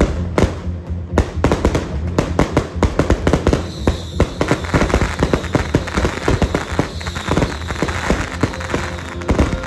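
A string of firecrackers going off in rapid, irregular cracks, starting about a second in and thinning out near the end, over background music.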